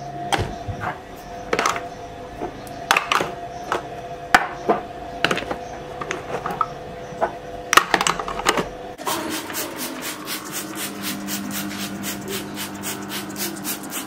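Small glass spice jars knocking and clinking as they are set one by one onto a plastic turntable spice rack, a string of irregular sharp knocks over a steady background hum. About nine seconds in this gives way to a fast, even ticking, about five a second.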